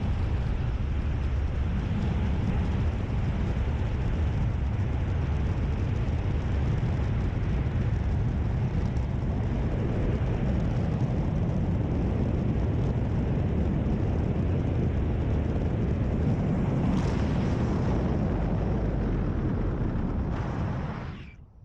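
Steady rushing wind noise buffeting the microphone in flight under a parachute, heavy and low, fading out near the end.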